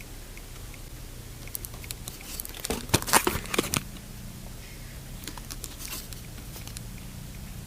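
Crinkling and rustling handling noises in two bursts, the busiest around three seconds in and another a little after five seconds, over a steady low hum.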